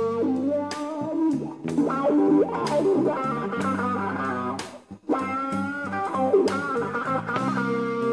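Live slow blues band: electric guitar playing lead lines with sustained, bending notes over bass guitar and drums. The band stops for an instant just before five seconds in, then comes back in.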